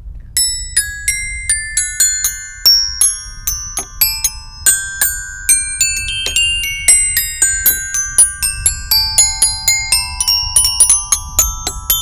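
Xylophone being played with a mallet: a steady run of single struck notes, about three to four a second, each ringing briefly, wandering up and down in pitch.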